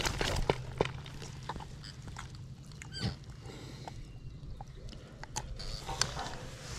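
Hands handling a common carp in a mesh landing net: scattered small clicks, rustles and knocks, with a sharper knock about three seconds in.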